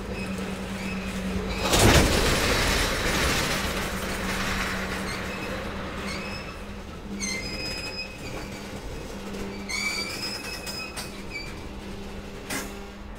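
A freight train of crude oil tank cars rolling by, its wheels giving short high-pitched squeals a few times over a steady low hum. A loud rush of noise comes about two seconds in, and a sharp knock comes near the end.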